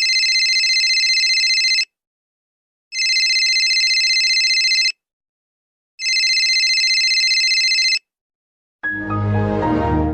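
Telephone ringing three times, each ring about two seconds long with a gap of about a second between them. Near the end a different sound with lower tones starts and begins to fade.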